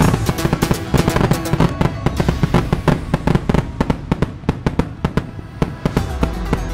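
Aerial fireworks bursting and crackling in quick, irregular succession, with music playing underneath.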